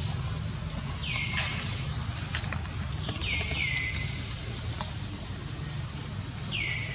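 Short high animal calls that slide down in pitch and then level off, heard about five times, singly and in close pairs, over a steady low outdoor rumble, with a few faint sharp clicks.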